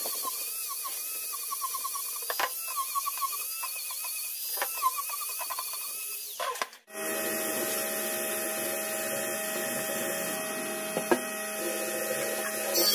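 Angle grinder with a sanding disc running against the edge of a pine board, sanding it smooth; it stops abruptly about seven seconds in. A small handheld rotary tool then runs steadily, grinding a notch into the pine.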